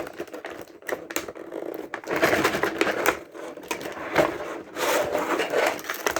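Cardboard box and plastic packaging being handled while a remote-control car is worked out of it: a busy run of rapid clicks, rattles and scrapes, heavier in the second half.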